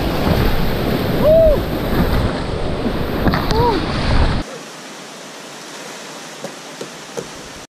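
Loud rushing water of a river rapid with wind buffeting the microphone, and two short rising-and-falling tones about one and three and a half seconds in. About four and a half seconds in, the sound cuts abruptly to a much quieter, thinner hiss.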